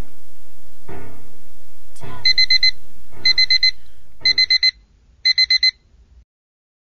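Digital bedside alarm clock beeping in quick bursts of four, one burst a second, four bursts in all, then stopping as it is shut off by hand. Under the first bursts, music with chords struck about once a second fades out.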